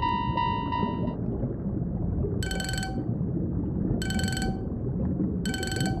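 Japanese-style railroad crossing warning bell (kan-kan) dinging rapidly, about three strikes a second, stopping just after a second in. Then three separate short bell-like dings about a second and a half apart, over a steady low rumble.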